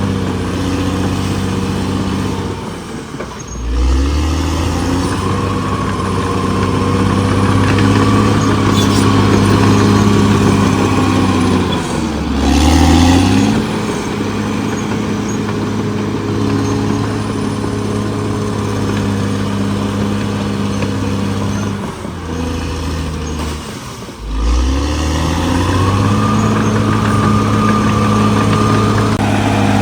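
Caterpillar D6R XL bulldozer's diesel engine working hard. Its note sags and climbs back three times: a few seconds in, about halfway, and about three quarters of the way through. There is a short burst of hiss with the second rise.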